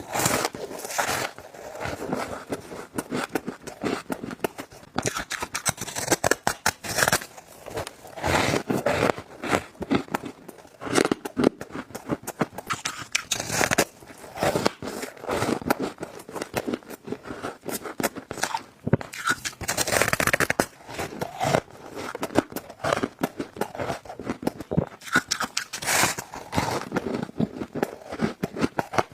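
Close-miked bites into soft, squeaky freezer frost and shaved ice, crunching and crackling in quick runs of strokes, one bite after another.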